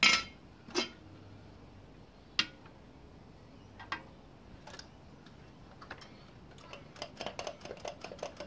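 Steel air cleaner lid lifted off a car engine's air cleaner and handled: scattered sharp metal clicks and knocks, the loudest at the very start, then a quick run of light ticks near the end as the filter housing is handled.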